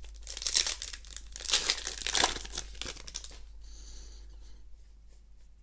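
Foil Magic: The Gathering booster pack wrapper being crinkled and torn open, a dense crackle lasting about three seconds, followed by a faint rustle as the cards are slid out.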